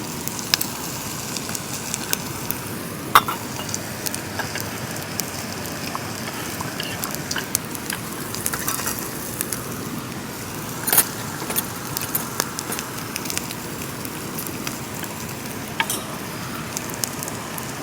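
Pork belly sizzling over the heat under steady rain, with scattered sharp clinks and taps of utensils, the loudest about 3 seconds and 11 seconds in.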